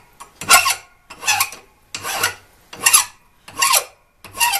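Hand file rasping on the steel end of a vise's Acme-threaded screw, in even strokes about one every 0.8 seconds, taking off the fragile end thread.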